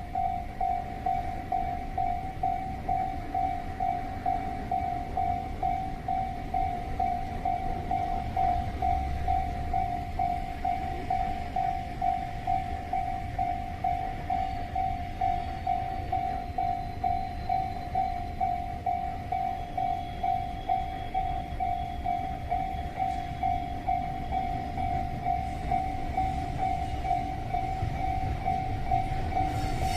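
Japanese level-crossing alarm bell ringing steadily at about two strokes a second, over the low rumble of a long container freight train hauled by an EF210 electric locomotive rolling through the crossing.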